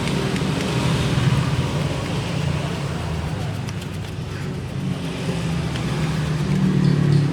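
An engine running steadily with a low, fluttering hum.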